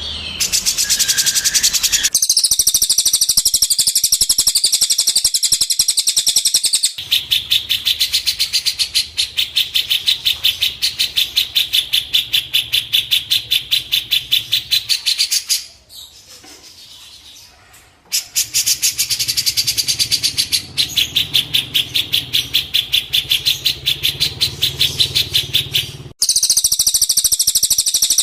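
Recorded songbird song played as a training track for cage birds: long runs of rapid, evenly repeated high chirps, several a second, with a short lull about two-thirds of the way through.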